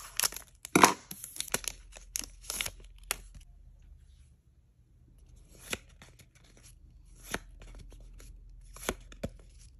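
Scissors cutting open a foil trading-card pack, with crackling of the crinkly wrapper for the first three seconds or so, loudest about a second in. After a brief quiet, a few single soft clicks of the cards being handled.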